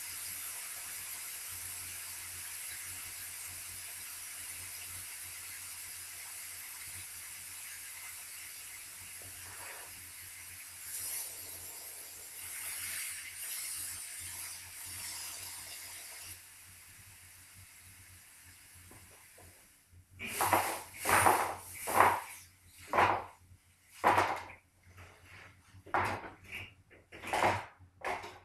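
Refrigerant (Freon) hissing out of a pierced line on a window air conditioner as the system depressurizes: a steady high hiss that fades slowly and cuts off about sixteen seconds in. After a short pause comes a quick run of loud metallic clanks.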